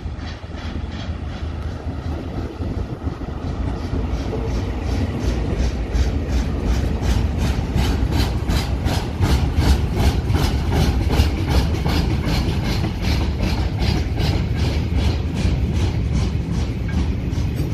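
KiwiRail DL-class diesel-electric locomotives hauling a freight train past: the diesel engines give a low rumble that grows louder over the first few seconds. As the wagons roll by, their wheels add a steady rhythm of clicks, about four a second.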